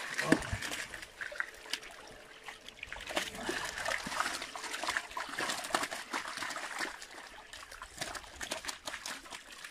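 Many live carp flapping and thrashing in shallow water on concrete, making irregular wet slaps and splashes over a steady trickle of water.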